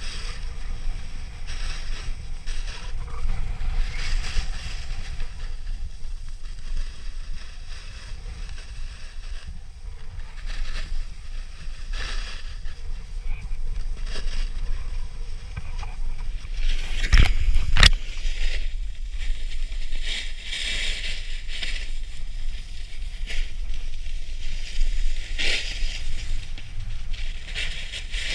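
Snowboard edges scraping and carving over packed and loose snow, the hiss swelling and fading with each turn, over a steady rumble of wind on the action camera's microphone. A couple of sharp knocks come a little past halfway.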